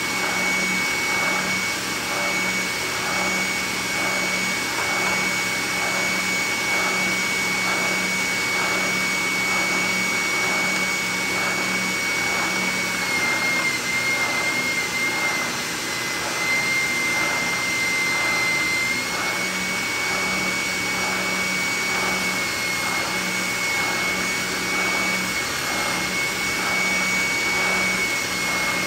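Benchtop oscillating spindle sander running together with the shop vacuum on its dust port, a steady machine noise with a high whine and a soft regular pulsing. A small metal part is pressed against the sanding drum; midway the whine drops slightly in pitch for several seconds, then comes back up.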